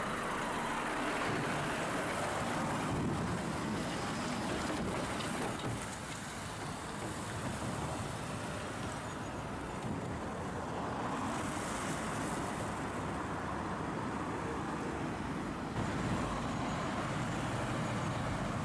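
Volvo FH articulated lorry's diesel engine and tyres as it passes close by and pulls away, the sound thinning as it goes. Near the end a Scania lorry's engine grows louder as it approaches, with cars in the traffic.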